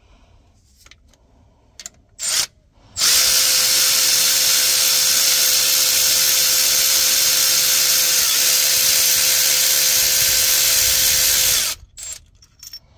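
Cordless electric ratchet running steadily for about nine seconds, holding one even pitch as it spins out the injector hold-down bolt on a Caterpillar 3176 diesel engine. A short blip from the tool comes about two seconds in, and the run cuts off suddenly near the end.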